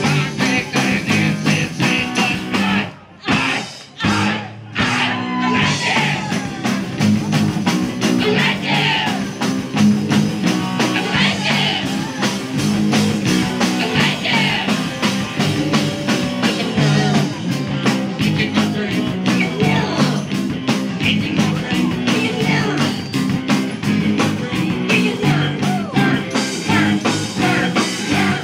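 Live rock band playing with electric guitars, drum kit and tambourine, with singing. The band stops short twice, about three and four and a half seconds in, then plays on.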